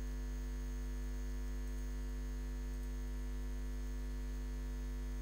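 Steady electrical mains hum: a constant low drone with higher overtones over a faint hiss, unchanging throughout.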